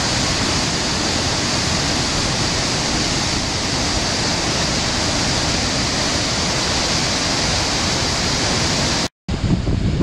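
Waterfall in spate after heavy rain: a steady, loud rush of white water pouring over rocks. About nine seconds in the sound cuts out for an instant and comes back lower-pitched and unsteady.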